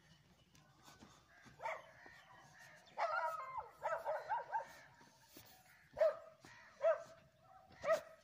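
A dog barking and yipping: one bark, then a quick run of yips about three seconds in, and three single barks about a second apart near the end.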